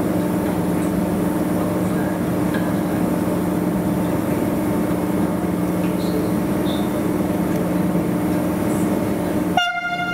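CP 5600 electric locomotive standing at the platform with a steady low hum from its equipment. Near the end the sound breaks off for a moment, then a short single-pitched tone sounds for about a second and a half.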